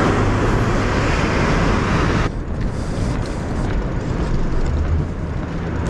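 Road traffic noise with wind rushing on the microphone, a broad rushing sound that drops off abruptly a little over two seconds in, leaving a lower traffic rumble.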